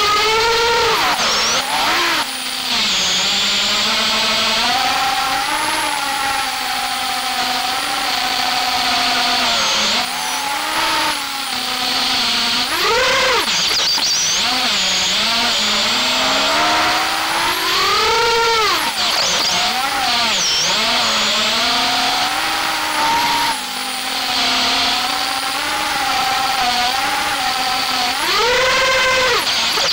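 FPV freestyle quadcopter's brushless motors and propellers, heard on board: a buzzing whine that rises and falls with the throttle, with several sharp surges in pitch over a steady rush of air.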